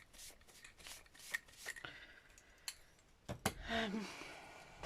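Craft-table handling sounds: a quick run of short scraping or snipping strokes on paper, about three a second, then a few sharp clicks of tools being set down, with a brief murmur of voice near the end.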